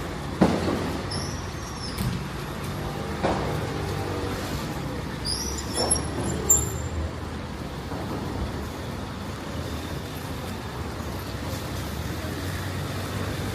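Street traffic with a steady low rumble of passing vehicles, including a bus. A few sharp knocks stand out, the loudest just after the start, and brief high squeals come near the middle.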